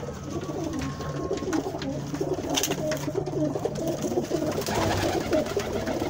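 A loft full of domestic flying pigeons cooing together: many low, overlapping coos, with a few faint clicks among them.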